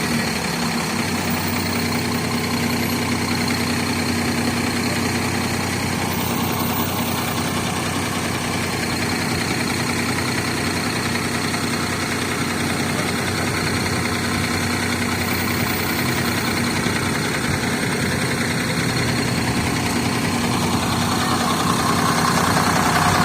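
A diesel school bus's Cummins ISC inline-six engine idling steadily, growing a little louder near the end.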